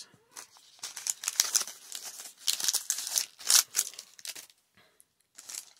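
Foil packaging wrapper crinkling and rustling as it is handled, dense and irregular, dying away about four seconds in.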